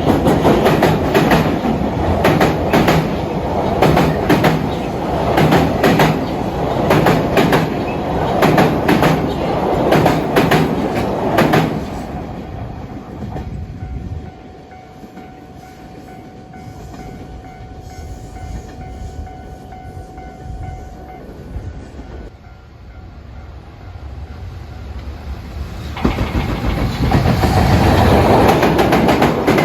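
Train passing, its wheels clattering over rail joints in a fast run of clicks. After about twelve seconds the sound dies away to a quieter stretch carrying a faint steady tone, and near the end another loud train passage begins.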